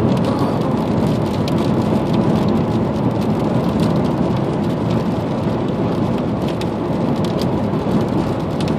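Steady rain during a thunderstorm, with many individual drops clicking on a surface close by.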